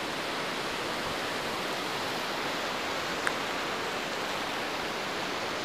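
Steady rush of a mountain waterfall cascading down a rock cliff, with one brief click about three seconds in.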